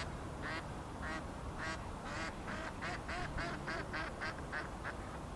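A duck quacking in a long series, about two calls a second at first, then faster at about four a second, stopping shortly before the end.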